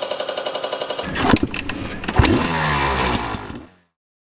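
Engine revving sound effect on a logo sting: fast even firing pulses, then rising and falling revs with a couple of sharp hits, fading out shortly before the end.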